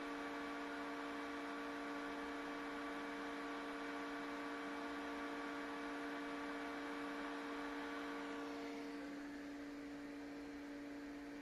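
Steady electrical hum made of several fixed tones over a light hiss. About three-quarters of the way through, the higher tones fade and the hum gets slightly quieter.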